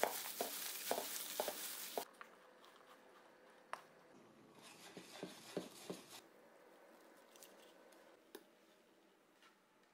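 The tail of drum-led music cuts off about two seconds in. After that it is very quiet, with a few faint taps and clicks of baking utensils against a stainless steel bowl and mesh sieve.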